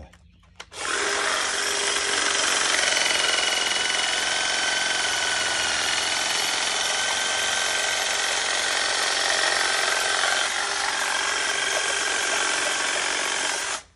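Cordless Stihl battery hedge trimmer running steadily as its reciprocating blades cut down a bundle of ornamental grass. It starts about a second in and stops abruptly just before the end.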